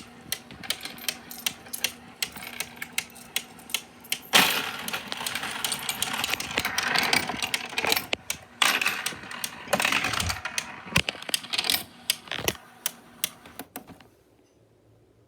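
Coin sorter sorting coins: quick clicks of single coins dropping through over a low steady hum, then a dense rattle of many coins from about four seconds in to about twelve, then scattered clicks that stop about fourteen seconds in.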